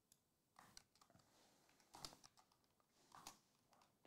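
Faint, irregular typing and clicking on a computer keyboard, with a couple of slightly louder taps and rustles about two and three seconds in.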